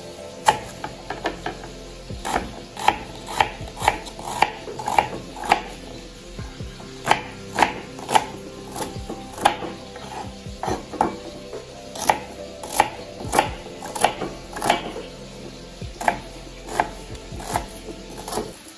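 Kitchen knife chopping an onion on a wooden cutting board: sharp knocks of the blade hitting the board, about two a second, with a short pause about a third of the way through.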